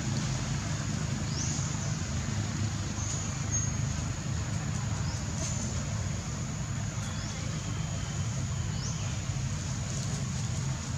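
Steady outdoor background noise: a low, even rumble with a faint high hiss above it, and a few brief rising high sounds.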